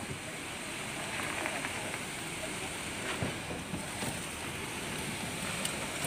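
Concrete pump running steadily while wet concrete discharges from its rubber end hose onto the slab formwork, with a few faint knocks.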